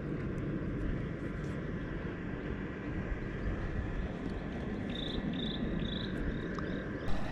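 Steady low outdoor rumble, with a run of short high chirps about five seconds in and a brief knock just before the end.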